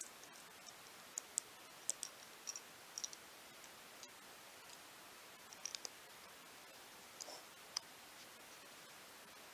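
Scattered light plastic clicks and taps, a dozen or so at uneven intervals, as Lego bricks are handled and pressed into place, over a faint steady hiss.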